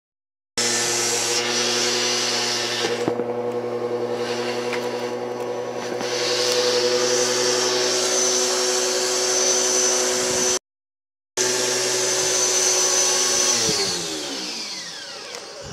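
Electric pressure washer's motor and pump running with a steady hum. The sound drops out for a moment about two-thirds through, then the motor winds down near the end, its pitch falling as it stops.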